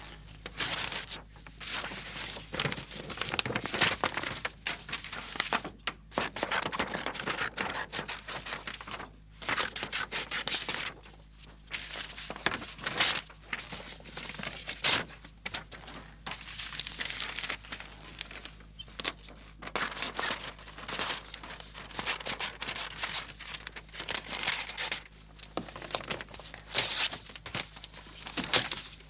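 Scissors cutting through a knitted sweater, then paper and a magazine being torn and crumpled by hand, in quick irregular bursts of ripping and rustling with short pauses between.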